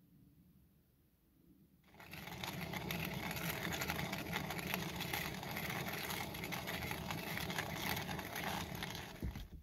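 Hand-crank coffee grinder grinding beans: a steady gritty grinding that starts about two seconds in and stops just before the end.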